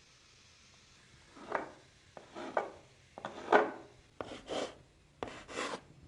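A series of five short rubbing or scraping strokes, about one a second, the middle one the loudest.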